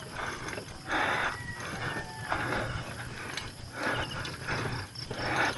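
Bicycle being pushed along a dirt path on foot: uneven crunching steps on dirt and gravel, about one a second, with the rear freewheel ticking as the wheel rolls.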